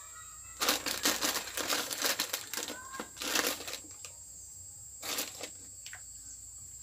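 Thin plastic bag crinkling and rustling in repeated bursts as it is handled and opened, with a last short rustle about five seconds in.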